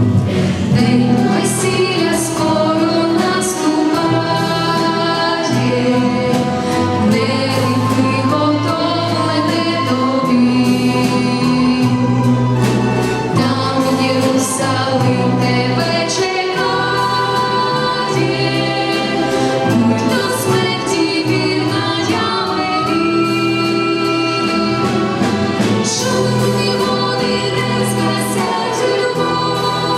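Church choir singing a hymn with orchestral accompaniment, in long held chords.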